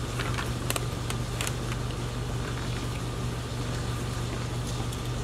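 Steady low mechanical hum of a room appliance, with a few faint clicks in the first second and a half while a knife cuts raw pork away from a pig's thigh bone.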